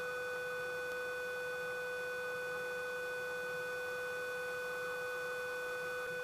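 Steady electrical whine on the aircraft's intercom and radio audio feed: a constant pitched tone with higher overtones over a faint hiss.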